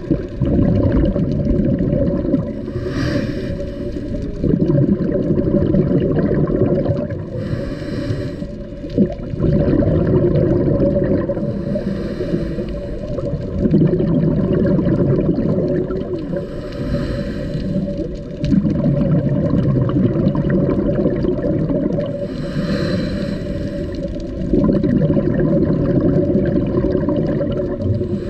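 Scuba diver's breathing heard underwater through the regulator: a short hiss of each inhale, then a longer gurgle of exhaled bubbles, repeating about every five seconds.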